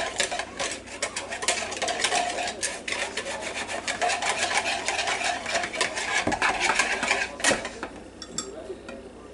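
A small wire whisk beating rapidly in a small bowl, its wires scraping and clicking against the sides as cornstarch is mixed into a little milk. The whisking stops about seven and a half seconds in, after one sharper click.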